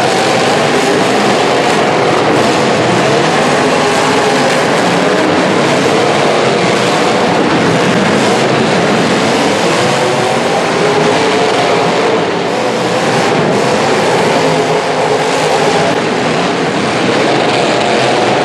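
Engines of several full-size demolition derby cars revving together in a loud, dense wash of engine noise, their pitch wavering up and down.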